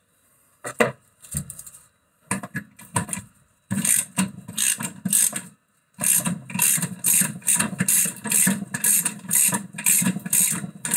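Ratchet spanner worked back and forth on a bolt of a front wheel hub, clicking. A few scattered knocks come first, then from about four seconds in a steady rhythm of about two strokes a second.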